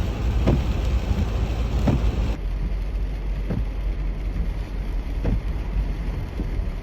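Freezing rain falling with a steady rushing hiss and a low rumble, broken by a sharp crack or knock about every second and a half.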